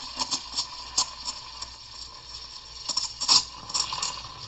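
Lelit Mara X steam wand frothing milk in a stainless steel pitcher: a steady steam hiss broken by irregular sharp chirps and pops as the wand tip draws air into the milk, the stretching stage of steaming.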